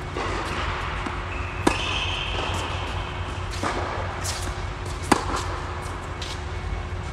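Tennis rally: a tennis ball struck by rackets, with a sharp hit about 1.7 s in and a louder close forehand hit about five seconds in, and fainter ball bounces between. A steady low hum underneath.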